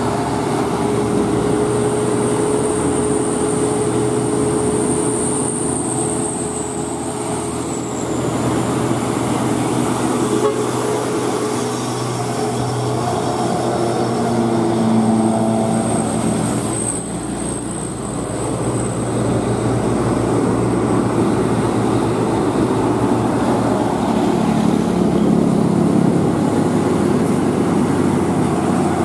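Hino 500 dump trucks driving past with their diesel engines running, while a horn sounds in held and then stepped, changing notes, loudest around the middle.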